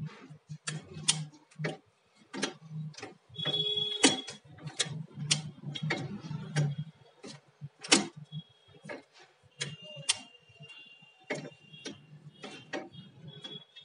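Automatic wire chain making machine running, its cutting and bending tools clicking and clacking sharply, about two uneven strikes a second, over a low hum. A thin high whine comes and goes.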